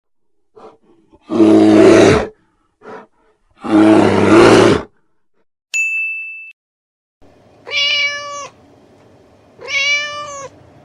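Two deep, harsh roars from a large animal, each about a second long. A short ding chime follows, then two drawn-out house cat meows over a faint hiss.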